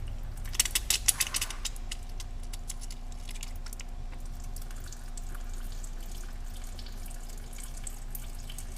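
Brake fluid rushing out of an opened brake bleeder screw under pressure from a compressor-fed pressure bleeder, a steady liquid rush. A few sharp clicks come about a second in.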